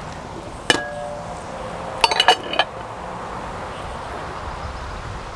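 Metal clinks at a cast-iron cookware setup on a tripod grill: one sharp, ringing clink about a second in, then a quick run of several clinks around two seconds in.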